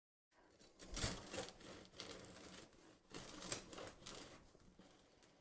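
Serrated Wüsthof bread knife sawing through the crisp crust of a sourdough batard: faint rasping strokes in three short bouts, starting about a second in.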